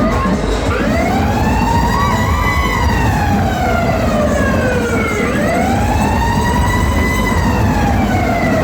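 A siren wailing, its pitch rising and falling slowly twice, over a heavy low rumble.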